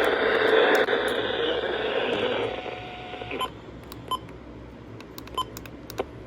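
NOAA Weather Radio audio on a receiver: a band-limited radio hiss that drops away about two and a half seconds in, leaving a quieter hiss broken by three short beeps and a few clicks near the end.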